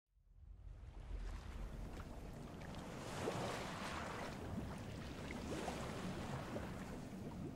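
Sea waves washing onto a beach, a steady rushing surf that fades in from silence just after the start.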